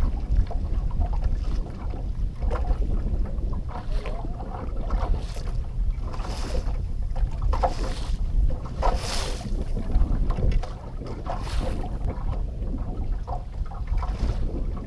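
Wind buffeting the microphone in a constant low rumble, with water lapping and slapping against a small fishing boat's hull now and then.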